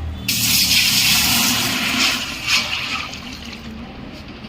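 Water rushing: a loud hiss that starts suddenly about a quarter second in, stays strong for two to three seconds, then eases off.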